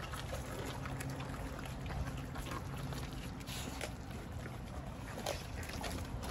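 Dogs chewing raw whole chickens: scattered short crunches and clicks of teeth on raw meat and bone, over a steady low hum.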